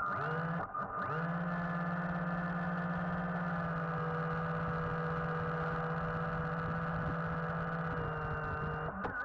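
Small electric drive motor of an RC submarine running underwater, heard through the camera housing: a steady hum that spins up at the start, drops out for a moment, starts again about a second in, and cuts off near the end.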